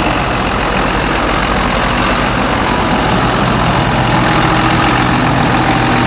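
John Deere tractor's diesel engine running steadily under load while pulling a mounted reversible plough.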